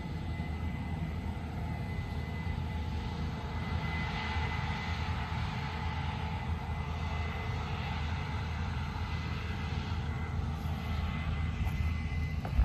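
Combine harvester cutting beans, its engine running as a steady low drone with a faint, steady high whine over it.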